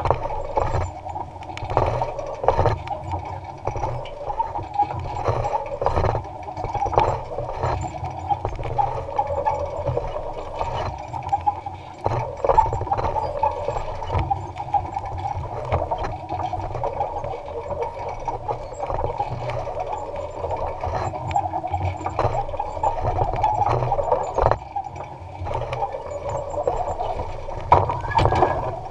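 Electric-powered Allis-Chalmers Model G tractor running steadily with a basket weeder working the soil, with frequent clicks and rattles throughout.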